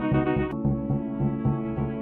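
Background music: held chords over a quick, even pulsing bass, with a sharp click about half a second in where the chord changes.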